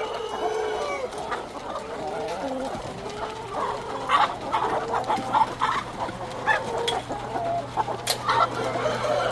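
A large flock of chickens clucking and squawking together, many short calls overlapping, with a steady low hum underneath and a few sharp clicks near the end.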